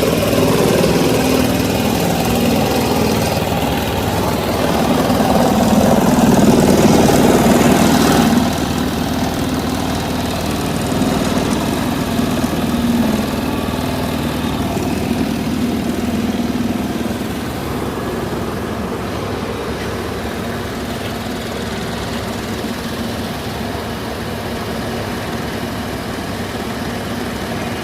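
Steady machine drone with a low hum. It steps quieter about eight seconds in and again about seventeen seconds in.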